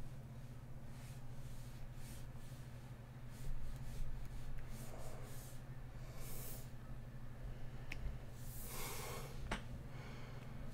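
A person breathing audibly through the nose close to the microphone, a short sniff-like breath about two-thirds of the way in and a longer one near the end, over a steady low electrical hum, with a couple of faint sharp clicks.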